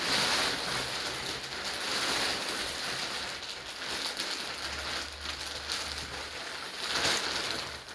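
Plastic wrapping on a freshly unboxed foam mattress crackling and rustling, a continuous hiss with a louder rustle about seven seconds in.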